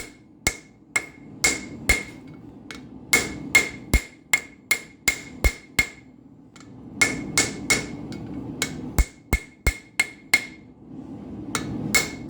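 Blacksmith's hammer striking hot steel on an anvil: quick runs of blows, about two to three a second, each with a short metallic ring, paused twice briefly. It is the sound of forging the rose-pattern head of a hand-forged nail.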